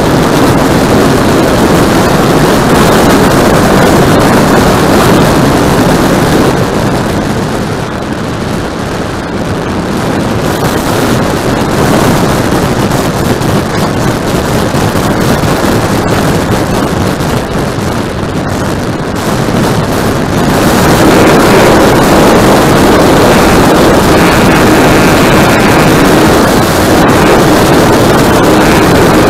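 Radio-controlled model airplane's motor and propeller running loud, heard from a camera on the plane and mixed with wind rush on the microphone. The noise eases off twice for a few seconds, then comes back up and holds steady near the end.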